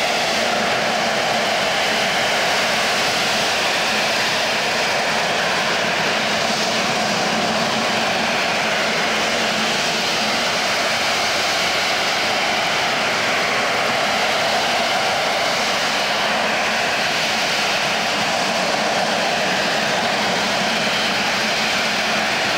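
Rolls-Royce Pegasus turbofan of an AV-8B Harrier running at high power while the jet flies slowly and hovers with its nozzles turned down. A loud, steady jet roar with a faint whine over it.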